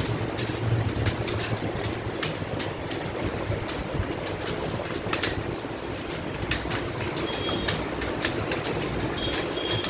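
Computer keyboard being typed on: quick, irregular key clicks over a steady low hum.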